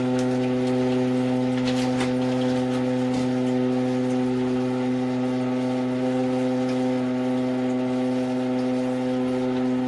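Toilet cistern ball cock (float-operated fill valve) droning a steady low-pitched hum with a hiss of water as the cistern fills: the faulty valve's noise, like a hover raft starting up.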